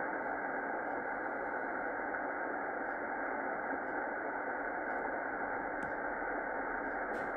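Tecsun S-2200x shortwave receiver in single-sideband mode giving out steady static as it is tuned up through the empty low end of the 9 MHz band, the hiss cut off above the voice range by the sideband filter. A couple of faint clicks near the end.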